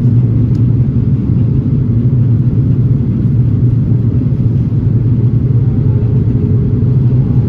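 Steady low cabin rumble of a Delta Airbus A330-900neo in flight on descent: the mixed drone of its Rolls-Royce Trent 7000 engines and the airflow over the fuselage, heard from a window seat.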